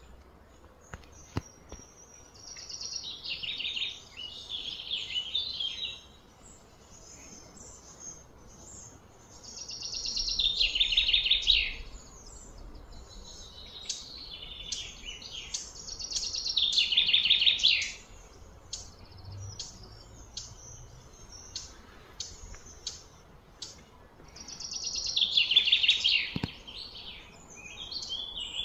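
Repeated high, fast-pulsed trilling calls: four long ones, each swelling over about two seconds and stopping short, with short high chirps scattered between them.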